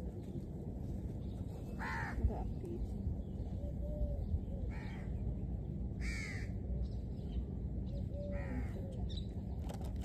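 A crow cawing: four short, harsh calls a couple of seconds apart over a steady low background rumble.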